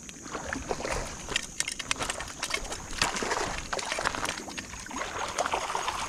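Shallow creek water splashing and sloshing as a hooked smallmouth bass is played close in, with many short, sharp splashes.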